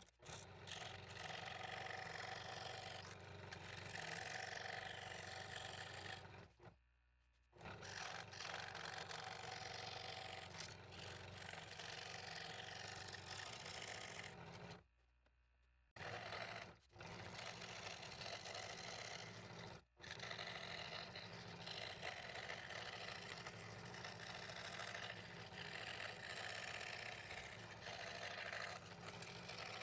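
Scroll saw running, its reciprocating blade cutting through a wooden fretwork pattern with a steady motor hum and rasp of the blade. The sound cuts out abruptly a few times, for about a second each.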